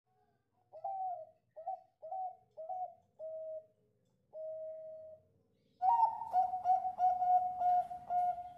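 Zebra dove (Bangkok-line perkutut) singing. It gives five short coos about half a second apart, then a longer one. About six seconds in comes a louder, quicker string of ringing notes, about three a second, that carries on.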